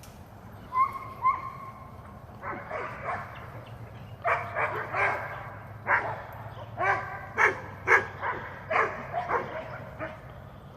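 A dog barking over and over in short calls, after two brief high whines about a second in.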